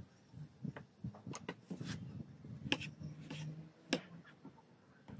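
Kitchen knife slicing a tomato on a wooden cutting board: a series of irregular sharp taps as the blade cuts through and meets the board.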